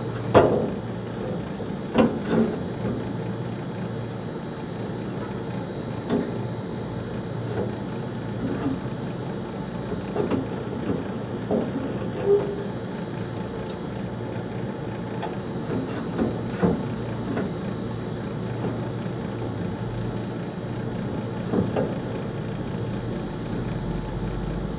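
Scattered knocks and clinks of hard parts and tools being handled while a fan motor is fitted back into a split AC outdoor unit, over a steady low hum.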